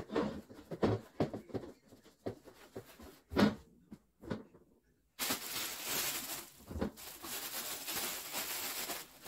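Cleaning a toilet paper holder: scattered clicks and knocks of handling and wiping, then after a short break a few seconds of steady hissing noise, ending in a knock.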